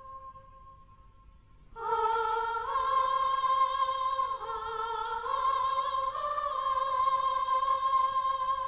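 Background music: a single held high note, then about two seconds in a fuller, louder part enters, with sustained wavering notes that move in slow steps.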